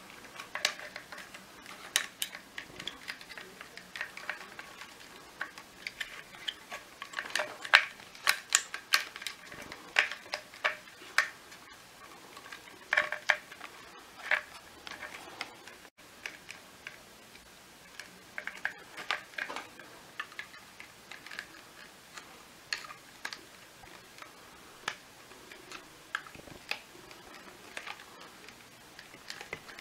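Irregular clicks, snaps and knocks of hard plastic vacuum-cleaner housing and wiring connectors being handled and prised apart by hand, with louder clusters of clicks a few times.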